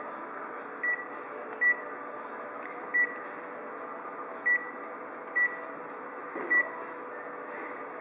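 Photocopier control panel giving six short, high single-tone beeps at uneven intervals as its keys are pressed, over the machine's steady hum.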